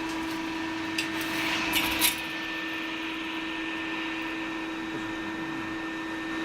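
Machinery of a CNC angle steel flange production line running with a steady hum that carries a few held tones. A couple of sharp knocks come about one and two seconds in.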